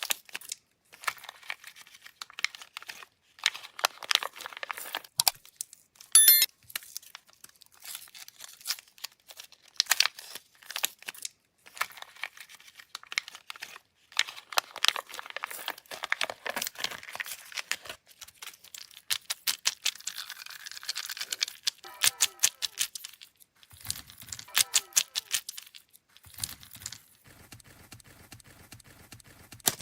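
Candy wrappers crinkling and tearing as sweets are unwrapped: irregular crackles and sharp snaps, quieter for the last couple of seconds.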